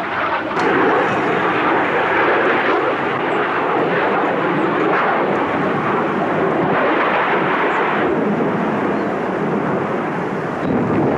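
Military jet aircraft engine noise, loud and steady, easing slightly in its higher part after about eight seconds.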